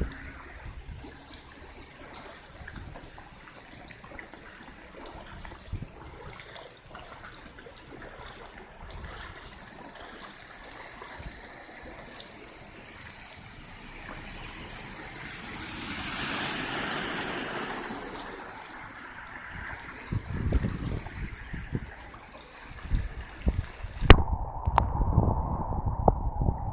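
Typhoon rain with rainwater running and trickling, a steady rushing that swells and fades about halfway through. Near the end there is a sharp click, and gusts buffet the microphone with low rumbles.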